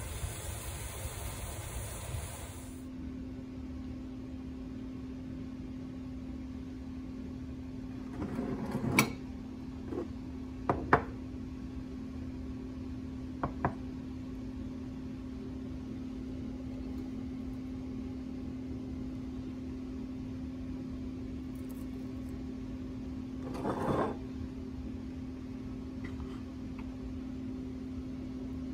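Kitchen dishes knocked and set down on a countertop: a few sharp knocks in the middle, the loudest about nine and eleven seconds in, and a short cluster near the end, over a steady low appliance hum. A steady hiss at the start cuts off after about two and a half seconds.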